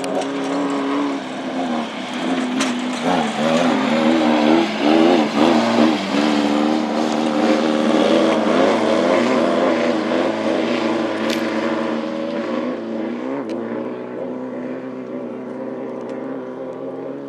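Class 11 off-road race car, a stock VW Beetle with an air-cooled flat-four, passing close at full throttle. Its engine note wavers up and down as it comes by, is loudest about five seconds in, then slowly fades away.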